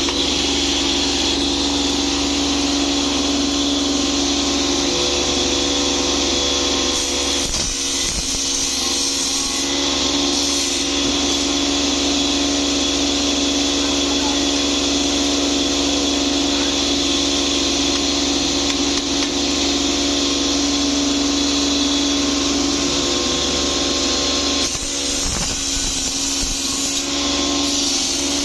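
Lidi-cutting machine driven by a 2 hp electric motor, running steadily at speed with a constant hum and a high whine. Twice, around eight and twenty-five seconds in, the steady sound is briefly disturbed and rougher.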